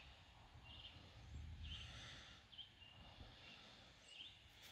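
Near silence: faint outdoor background with a low rumble and a few faint, short high-pitched chirps.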